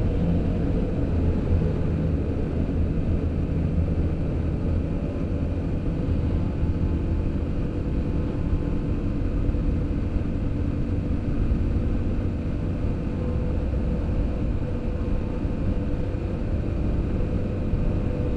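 Dual-sport motorcycle's engine running at a steady cruise, with road noise, heard from on the bike inside a road tunnel as an even, unbroken rumble.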